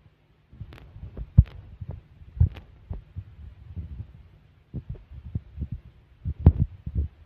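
Irregular dull thumps, a few louder and sharper than the rest, over a faint steady hum.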